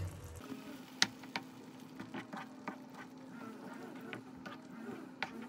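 A spoon clicking and scraping against a frying pan as a thick tomato and chickpea-flour mixture is stirred, in quiet irregular taps. A faint steady hum sits underneath.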